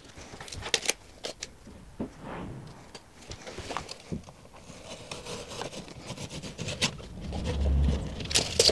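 Handling noise of plasterboard work: scattered light clicks, scrapes and knocks as plasterboard sheets are shifted and a steel tape measure is pulled out and held against a board. A low rumble swells near the end, followed by a sharp clatter.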